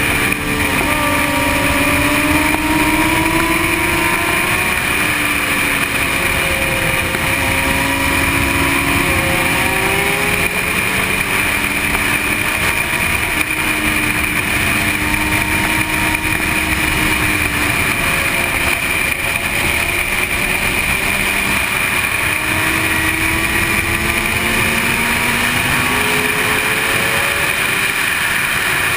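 Sport motorcycle engine at speed, its pitch rising under acceleration and dropping at each shift or roll-off, again and again, under heavy wind rush on a helmet-mounted camera.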